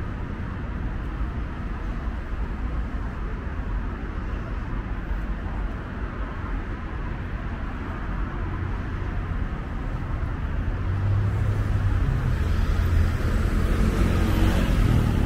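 Street traffic: steady road noise and engine rumble of passing cars, growing louder in the last few seconds as a vehicle draws near.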